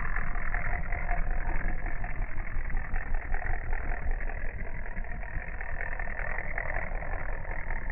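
Clockwork motor of a Kikkerland "Katita" wind-up walking toy running, a dense rapid clatter of clicks from its gears and cam as its wire legs step, heard in slow-motion playback.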